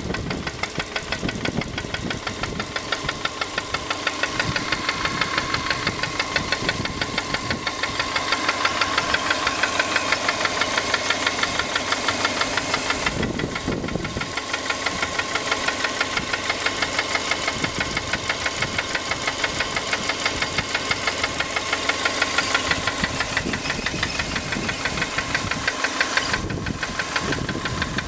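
Subaru Impreza's EJ15 1.5-litre flat-four engine running with a steady, rhythmic knock: the knock that appears once the engine is hot.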